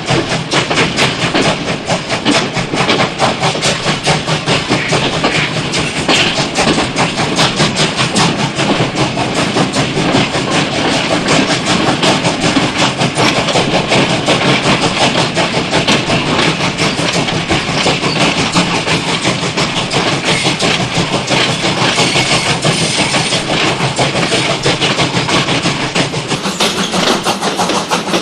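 Steam train running steadily, a fast, even rhythm of chuffing and clattering that carries on unbroken.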